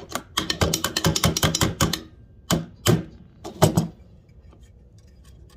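Diesel heater blower parts being knocked and tapped on: a fast run of taps for about two seconds, then four separate knocks. The tapping is done to free up the blower, which grinds as it spins.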